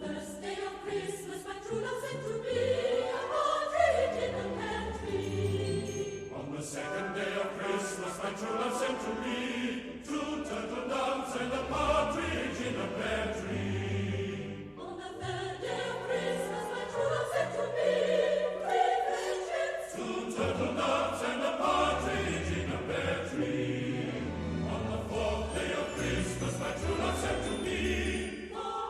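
Music: a choir singing over instrumental accompaniment with a moving bass line.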